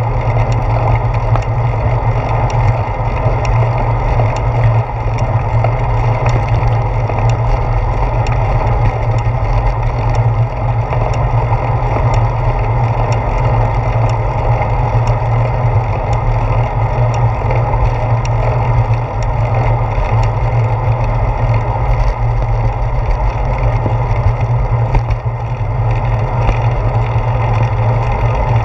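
Steady low rumble of wind and road vibration picked up by a handlebar-mounted GoPro Hero 4 as a bicycle rolls along a paved path, with occasional faint clicks.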